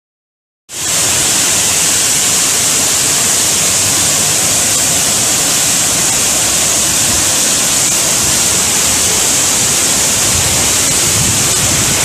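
Loud, steady rush of a floodwater torrent pouring down a channel, a hissing roar of fast water that starts suddenly under a second in.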